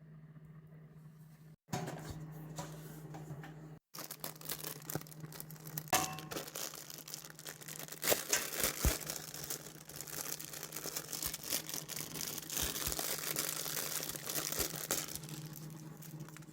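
Packaging being unwrapped: plastic and paper tearing and crinkling, with many small clicks and taps, over a steady low hum.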